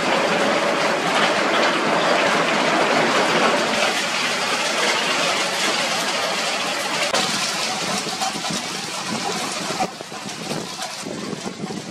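Heavy hailstorm: a dense hiss of hail and rain pattering on the ground and plants, made of countless small impacts. It drops quieter about ten seconds in.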